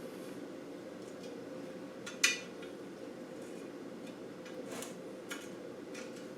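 Small metal pick clicking and scraping against an LT230 transfer box casing while prising out an O-ring, with one sharp click about two seconds in and a few faint ticks later, over a steady hum.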